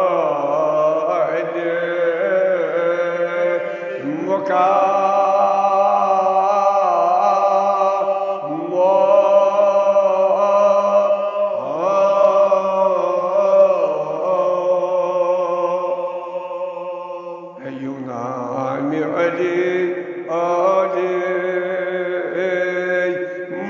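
A man's voice chanting a Kashmiri marsiya, a mourning elegy, in long held phrases; each phrase opens with an upward slide in pitch.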